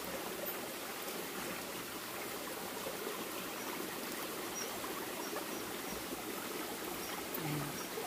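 Shallow rocky stream running steadily, with hands swishing a bunch of wild chives through the current as they are rinsed.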